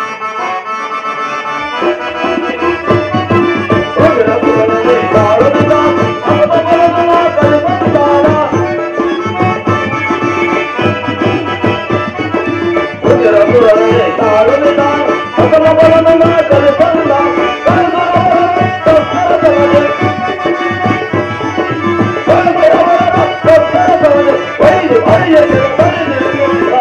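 Live drama accompaniment: tabla drumming and a harmonium playing a melody over a steady held drone. The drumming comes in about two seconds in.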